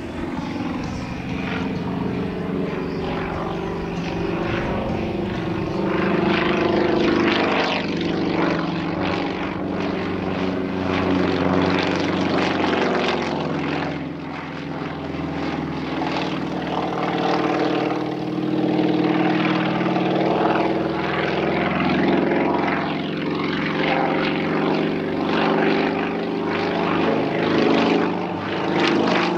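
Yak-55M aerobatic plane's nine-cylinder M-14P radial engine and propeller in flight, the engine note swelling and fading and its pitch sliding slowly up and down as the aircraft manoeuvres.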